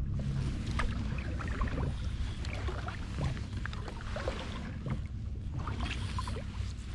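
Water sloshing and dripping around a kayak on the water, with many small splashes and ticks over a steady low rumble.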